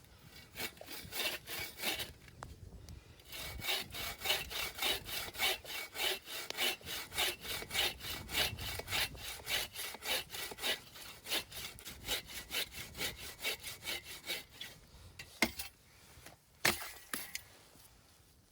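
Hand saw cutting wood, in a steady run of quick back-and-forth strokes at about three a second, likely firewood for the campfire. Two sharp cracks follow near the end.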